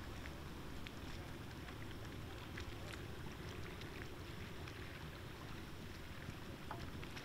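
Steady low rumble as a double-leaf bascule bridge lifts, with faint scattered ticks over it.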